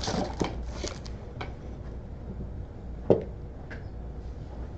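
Tabletop handling sounds: a few light taps and clicks, then one sharper knock about three seconds in, over a steady low background hum.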